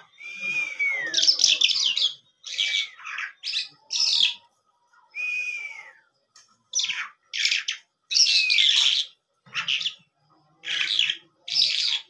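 Caged lark singing in short, loud phrases separated by brief pauses. Several phrases open with a clear whistle that slides downward, and the rest are rapid warbled and chirped notes.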